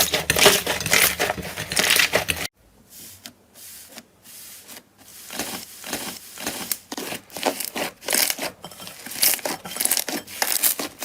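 Slime being squeezed and poked by hand, a dense run of crackly, crunchy pops and squishes. It cuts off suddenly about two and a half seconds in, then comes back quieter and builds up again.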